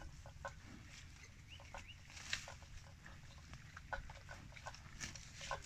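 Water buffalo grazing close up: irregular crisp snaps and crunches, several a second, as it tears off grass and leafy plants and chews.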